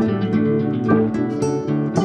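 Background music: an acoustic guitar playing a run of plucked notes.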